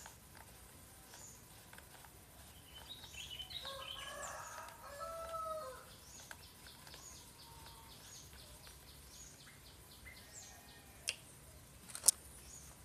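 A rooster crowing faintly, one drawn-out call about four seconds in, with faint short chirps after it. Two sharp clicks near the end are the loudest sounds.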